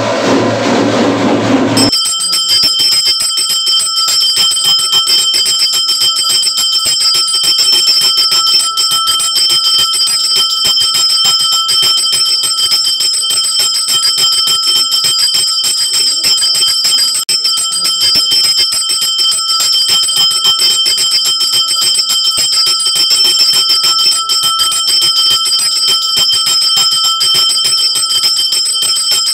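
A bell ringing rapidly and without pause, its ringing tones steady throughout. It cuts in abruptly about two seconds in.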